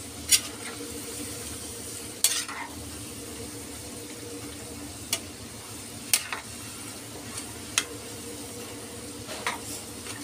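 Potato sticks deep-frying in hot oil in an iron kadhai, a steady sizzle, while a metal skimmer and slotted spatula scrape and tap against the pan about six times as the fries are turned.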